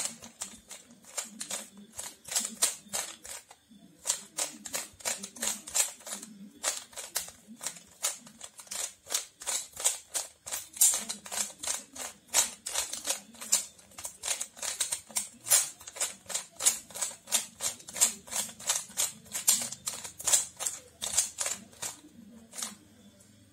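Plastic Rubik's cube being solved: its layers are turned rapidly by hand, a fast run of sharp clicks several times a second with a couple of short breaks, stopping near the end.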